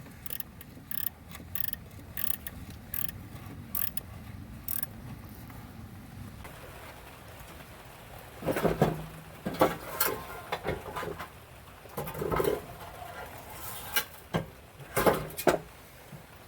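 Hand tools working on a riding mower's engine during engine removal: a run of light, sharp clicks for about the first five seconds, then louder, irregular metal clanks and knocks from about eight seconds in.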